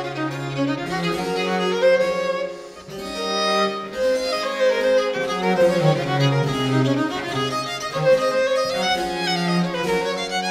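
Baroque violin playing an air, accompanied by baroque cello and harpsichord continuo, with a brief lull in the phrase about two and a half seconds in.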